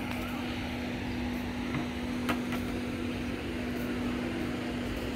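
Steady mechanical hum at one pitch over a background hiss, with a few faint clicks a little past two seconds in.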